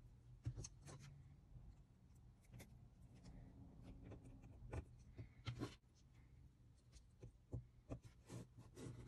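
Faint clicks, taps and rubbing as a servo lead and jumper wire are handled and pushed into a breadboard beside an Arduino, over a low steady hum.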